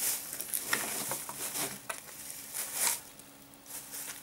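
Clear plastic bag of groundbait rustling and crinkling as it is handled, in short bursts on and off, the loudest a little before three seconds in.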